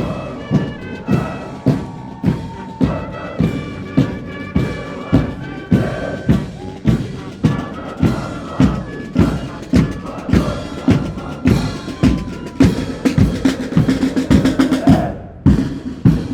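Military brass band playing a march: held brass melody over a steady bass-drum beat a little under two beats a second, with snare drum.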